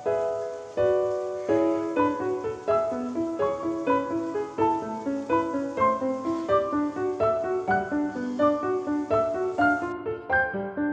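Background piano music: a steady, flowing run of single notes with light chords.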